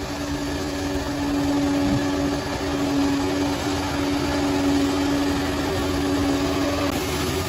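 Bulldozer's diesel engine running steadily, with a steady whine over the engine noise that stops about seven seconds in.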